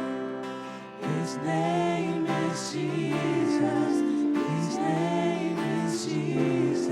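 Live worship music: a band with singing voices holding long notes, briefly softer just before a second in.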